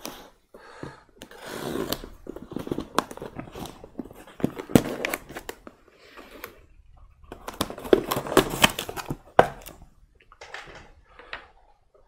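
Packing tape being torn off a cardboard box and the flaps pulled open: irregular bursts of ripping and rustling with sharp snaps.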